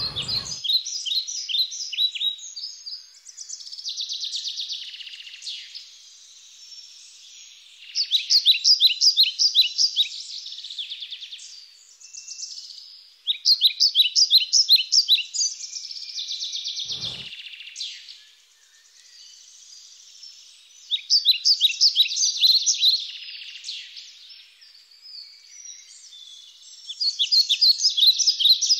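A bird singing: five phrases of rapid, evenly repeated high chirps, one every five to eight seconds, with softer buzzy notes in between.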